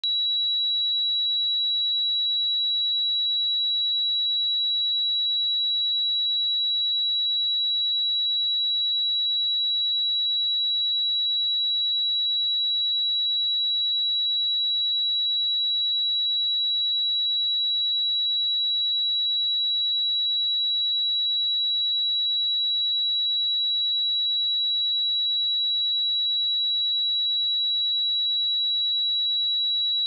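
A pure 3903 Hz sine-wave test tone, one high steady pitch held at a constant level with no other sound.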